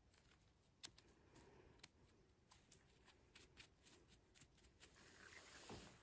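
Near silence with faint scattered clicks and light rustling as a handful of freshly picked chanterelles is handled over dry grass; the rustling grows a little near the end.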